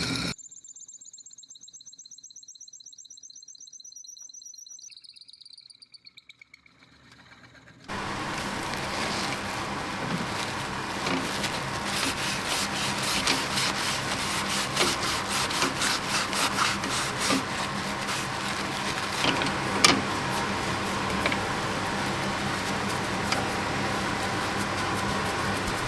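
A faint, wavering high whine for about eight seconds. Then a power tool starts up and runs with a steady hum while wood is worked against it, with many rapid small scraping clicks.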